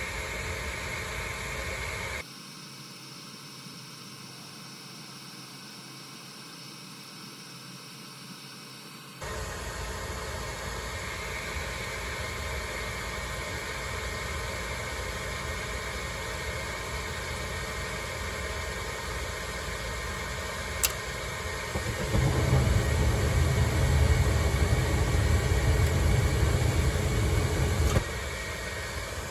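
Gas furnace running with a steady whir from its motor. It drops quieter for about seven seconds, then returns. Near the end a louder, deeper rumble joins in for about six seconds and cuts off abruptly.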